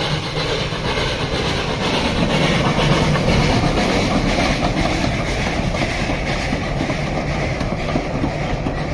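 Heritage steam train's passenger carriages rolling past close by: a steady rolling noise of steel wheels on the rails, with the wheels clicking over the rail joints.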